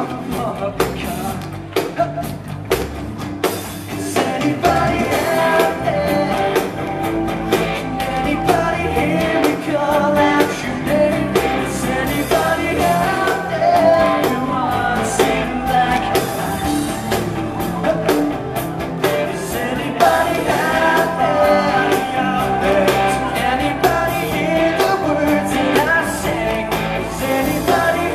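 Live rock band playing, with electric guitar, drums and a lead singer singing into a microphone. The sound is a band recording made from within the audience, and the singing comes in about four seconds in.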